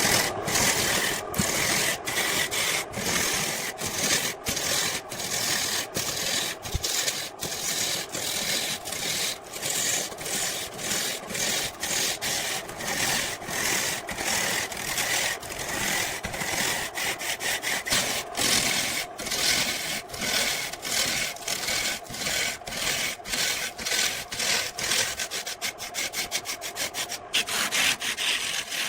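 Back-and-forth strokes of a hand tool cutting or abrading wood, a scratchy rasping noise with a brief break at each change of stroke, about one or two strokes a second, quickening briefly near the end.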